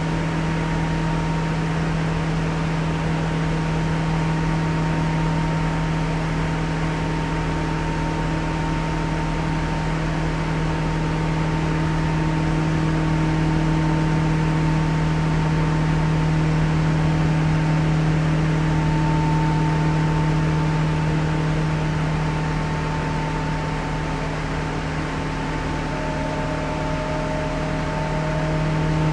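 KRL Jabodetabek commuter electric train running at steady speed: a continuous rumble with a strong low drone and a faint high motor whine, a second, lower whine joining near the end.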